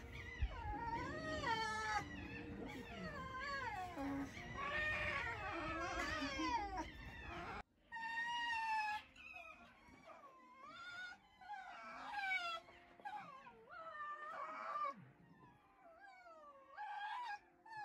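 Red foxes, a red one and a silver-black one, whining at each other in a string of high, wavering calls. The calls stop abruptly about halfway through and then resume more sparsely.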